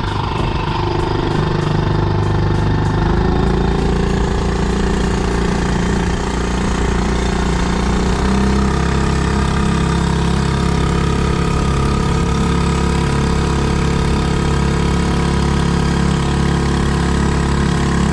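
Small two-horsepower outboard motor running steadily, its pitch stepping slightly about three seconds in and again about eight seconds in.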